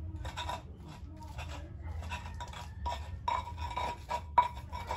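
A wooden or stone pestle (ulekan) grinding sambal in a flat mortar (cobek): repeated scraping and knocking strokes, about two or three a second, with one sharper knock a little over four seconds in.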